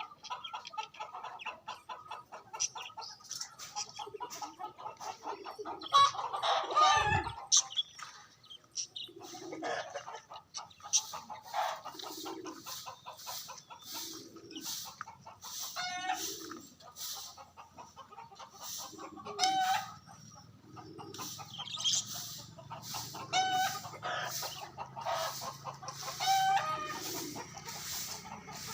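Chickens clucking, a series of short calls, with a louder burst of calling about six seconds in.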